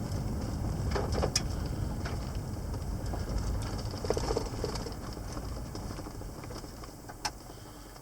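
Car cabin noise: a low rumble of engine and tyres that fades steadily as the car slows down, with a few faint clicks and knocks.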